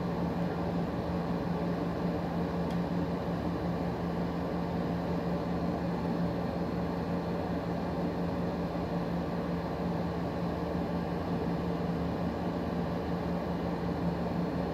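Steady machine hum: a constant low drone over a soft hiss, unchanging in pitch and level.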